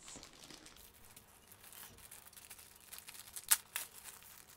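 Thin clear plastic sleeve rustling softly as a rolled diamond-painting canvas is slid out of it, with one sudden sharp crackle of the plastic about three and a half seconds in.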